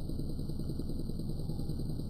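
Modified microwave-oven transformer with a heavy copper secondary humming steadily under heavy load. It is driving a high current through a short pin that it holds glowing hot.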